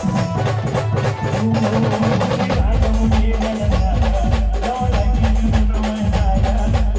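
Khandeshi band playing an instrumental passage: a steady drum beat with deep, repeated bass notes under a melody line.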